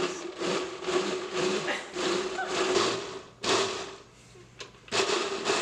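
Countertop blender running on chunks of chicken wings and snack food, churning them into a thick slurry. The jar's noise surges and eases about twice a second over a steady motor hum, drops away about four seconds in, then surges again near the end.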